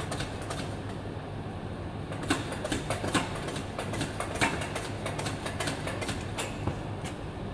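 Scattered light metal clinks and knocks from a Honda S2000 manual gearbox being handled and lined up under the car, with a few sharper knocks around the middle, over a steady low workshop hum.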